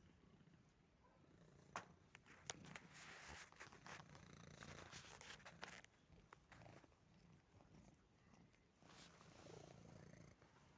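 Domestic cat purring quietly and steadily close to the microphone, with bursts of rustling and a few sharp clicks in the middle and near the end.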